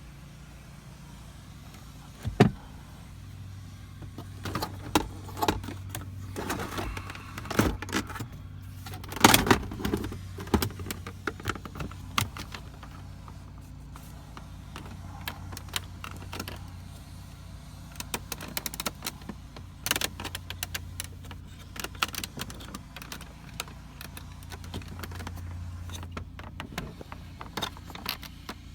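Irregular clicks and rattles of small metal parts being handled in a car, over a steady low hum that starts after a sharp click about two and a half seconds in.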